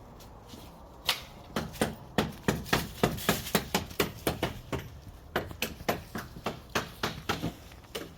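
A fast, even series of sharp knocks, about three a second, starting about a second in.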